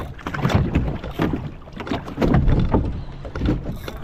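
Wind buffeting the microphone and waves slapping against a small fishing boat's hull at sea, coming in irregular surges.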